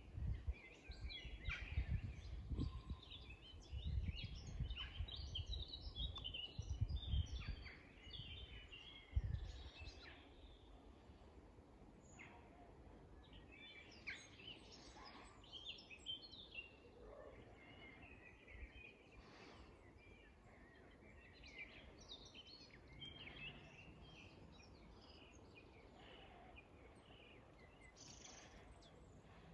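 Woodland birdsong: several small songbirds chirping and trilling in quick, overlapping phrases. For the first ten seconds or so, gusts of wind rumble low on the microphone.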